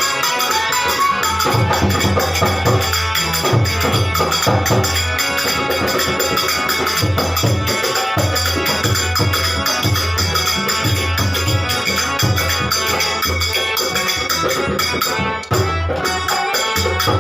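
Instrumental passage of a Hindi devotional bhajan: music with a steady beat, bass pulses, a quick high rattling percussion line and a melody. The music briefly drops out near the end.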